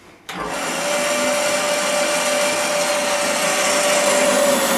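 Woodworking band saw switched on about a third of a second in, its motor coming up to speed and then running steadily with a hum, while a small potato is pushed into the blade.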